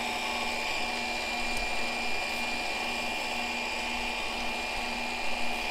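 Fellow Opus 40 mm conical burr grinder's motor running empty with no beans in it: a steady, not too loud whine with a thin high tone over it.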